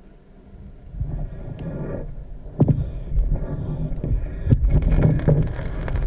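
Muffled rushing of water over a GoPro Hero3's waterproof housing as the camera is hauled up through the sea, starting about a second in and growing louder, with sharp knocks against the housing from about two and a half seconds in.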